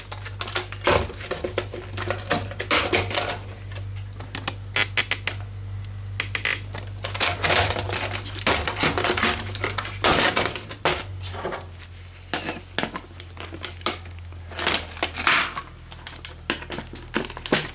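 Computer motherboard being snapped and pried apart with pliers: an irregular run of sharp clicks, snaps and metal-on-metal clatter as small mounts break off the board, over a steady low hum.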